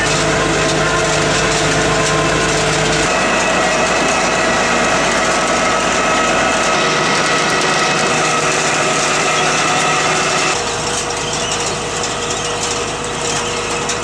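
Grimme DL 15 potato harvester working behind its Massey Ferguson 6270 tractor: a steady mechanical din of tractor engine, PTO-driven sieve webs and chains running through the soil, with several steady tones. The sound changes abruptly about three seconds in and again about ten seconds in, and is a little quieter after the second change.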